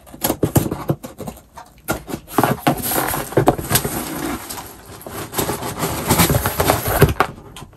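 Scissors snipping at a cardboard shipping box's tape, then the cardboard being pulled and torn open by hand, crackling and scraping with many small snaps for several seconds.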